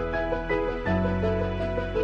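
Instrumental background music: held bass notes changing about once a second and a half under a repeating pattern of higher notes.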